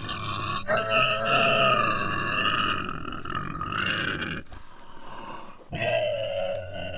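Piglets squealing: two long, high-pitched calls, the second starting about six seconds in after a short pause.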